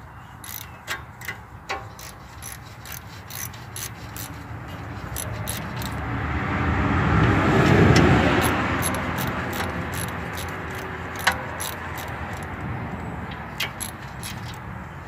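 Ratchet wrench clicking in regular strokes, about three clicks a second, as the ball joint bolts are backed out. A passing vehicle swells and fades through the middle.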